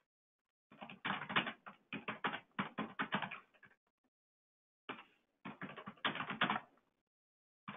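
Typing on a computer keyboard: a run of quick key clicks lasting about three seconds, a pause of about a second, then a second run of about two seconds.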